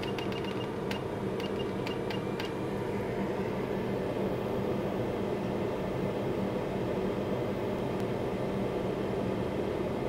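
Hot-air rework station blowing steadily on a flex-cable connector to melt its solder for removal, set to about 270 °C at 25% airflow, with a few faint ticks in the first couple of seconds.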